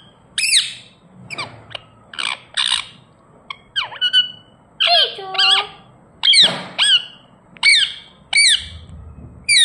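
Indian ringneck parrot giving a string of short, high-pitched calls, about a dozen in quick succession with brief pauses between them.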